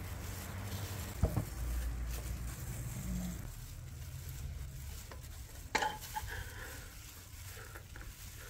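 Sour oranges being peeled with knives by gloved hands: a steady crackling, rustling scrape of blades through the rind and plastic gloves, with a sharp click about a second in and a louder one past the middle.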